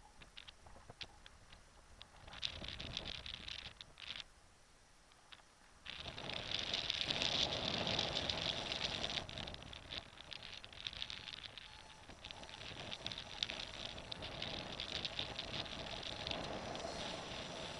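Airflow buffeting the microphone of a camera mounted on a paraglider in flight: a rushing, crackling noise with many small clicks. It grows louder about six seconds in.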